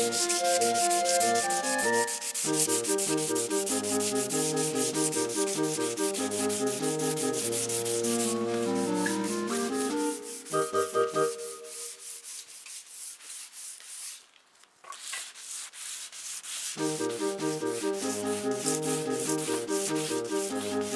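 Wood being sanded, a rasping rub over background music. The music drops out for several seconds in the middle, leaving the sanding on its own.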